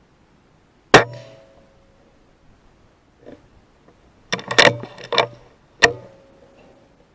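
Two sharp shots from a Weihrauch HW100 pre-charged pneumatic air rifle, about five seconds apart, each followed by a short ringing tone. Between them comes a quick run of mechanical clicks and clacks.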